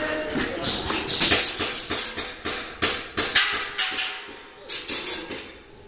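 Airsoft guns firing: sharp cracks, some single and some in quick bursts, spread through the whole stretch.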